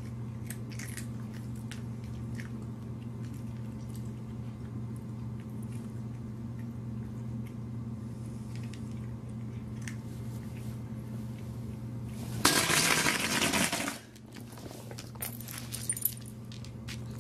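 A cat crunching dry kibble off the floor: faint, scattered crunches over a steady low hum. About twelve seconds in, a loud burst of noise lasts about a second and a half.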